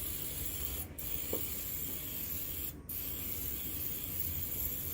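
A Pampered Chef Kitchen Spritzer oil mister sprays oil in a steady hiss, stopping briefly twice, about a second in and again near three seconds.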